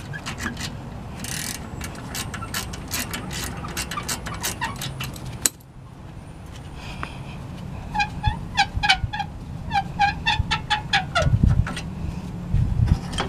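Socket ratchet clicking in quick runs while brake caliper bolts are backed out with a hex bit. The later run has a metallic ring to each click, and a few dull knocks come near the end.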